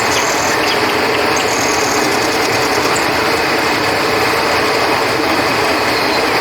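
Steady rush of flowing river water, with crickets trilling over it in a constant high chorus.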